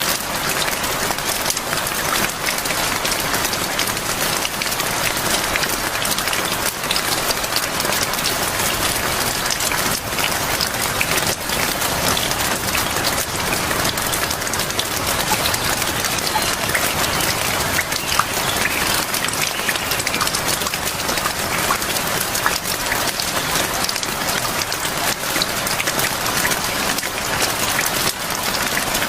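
Steady rain falling, a dense even hiss of many small drop impacts that does not change.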